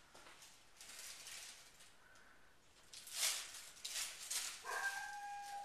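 Dog whining: a high, held whine starts near the end, after a couple of short rustling noises.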